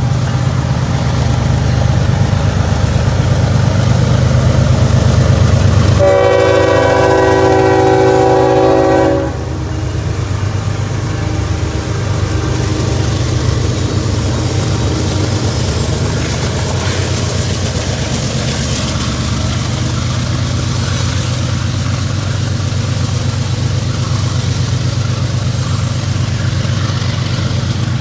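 A CSX coal train's lead GE ES44AH diesel locomotive passing close by with its engine running loud, sounding its air horn in one long blast of about three seconds some six seconds in, as at a grade crossing. After the horn stops, a steady rolling noise as the loaded coal hopper cars go past.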